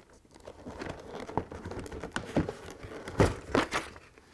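Cardboard kit box handled and its lid pulled off: a run of irregular rustling and scraping of card on card, with the loudest scrapes about three seconds in.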